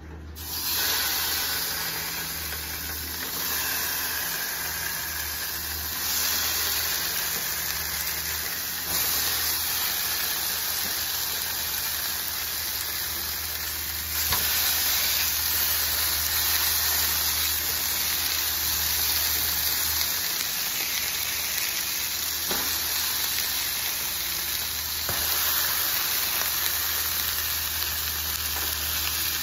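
Seasoned salmon fillets sizzling on a hot griddle pan, frying in oil. The sizzle starts suddenly about half a second in and gets louder in steps as more fillets are laid down, most clearly about 14 seconds in.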